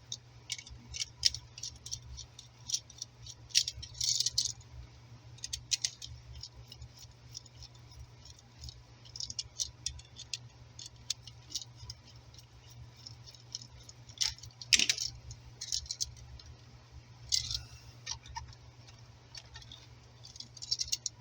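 Scattered small clicks and rattles of a 120 V wall outlet and screwdriver being handled while the side terminal screws are backed off, with one louder click about 15 seconds in. A steady low hum runs underneath.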